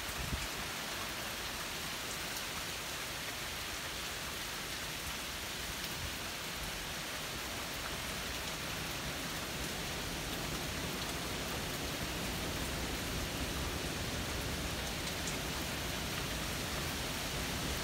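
Steady rain falling on the trees and ground, an even hiss without a break.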